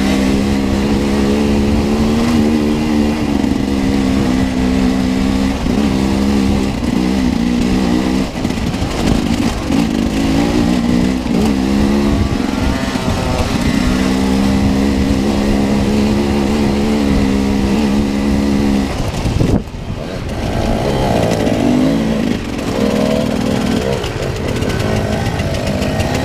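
Enduro dirt bike engine running under way, heard close up from the rider's own bike. It holds steady revs for stretches, and its pitch rises and falls in between as the throttle opens and closes. About twenty seconds in it drops off sharply for a moment, then runs on at lower, varying revs.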